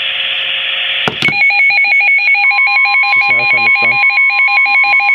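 Weather alert radio going off: hiss ends in a click about a second in, then a fast, evenly pulsing electronic alarm beep starts. About two seconds in, the steady NOAA Weather Radio 1050 Hz warning tone joins it, the sign of a warning being broadcast.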